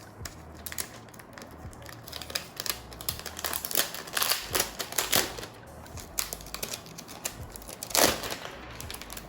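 Plastic wrapping crinkling and rustling in quick, irregular crackles as a new laptop is unwrapped by hand, with one louder crackle about eight seconds in.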